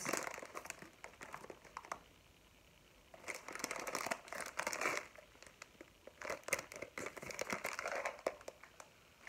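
Clear plastic bag of loose dried fruit tea crinkling as it is handled. It comes in bouts, with a short pause about two seconds in.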